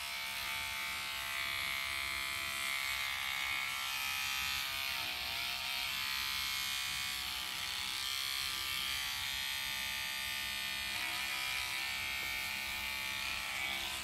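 Electric toothbrush running with a steady buzz, its head held lightly against a flower to vibrate the pollen loose: hand buzz-pollination. The pitch dips briefly about five seconds in.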